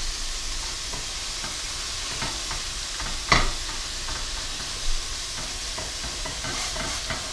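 Ground pork sizzling in a hot stainless steel skillet while a metal spatula scrapes and knocks against the pan, breaking up the meat. The sharpest scrape comes about three seconds in, another about five seconds in.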